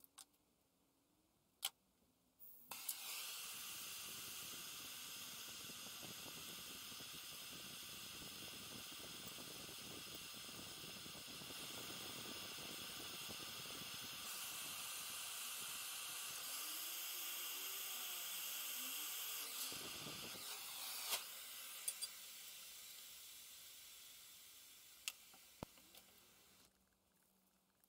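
Gas brazing torch burning with a steady hiss while hard-soldering a copper tube joint. The hiss starts abruptly about three seconds in and fades away over the last several seconds, with a few sharp clicks along the way.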